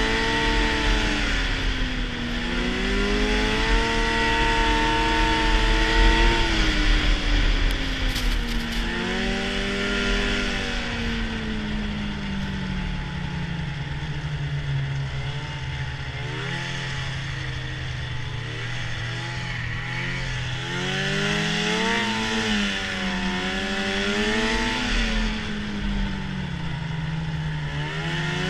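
Arctic Cat snowmobile engine running under way, its pitch rising and falling as the throttle is opened and eased, settling to a lower steady note for several seconds in the middle before climbing and dropping again twice near the end. A steady hiss runs under it.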